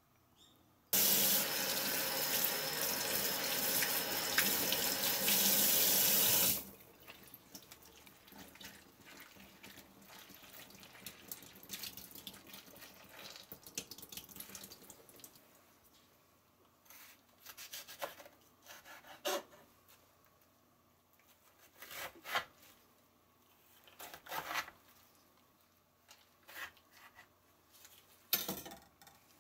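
Kitchen tap running hard into a sink for about five seconds, then shut off abruptly. Rinsed pickled napa cabbage is then squeezed by hand, with water dribbling and dripping into the sink, followed by a few short, separate knocks and rustles as the cabbage is handled.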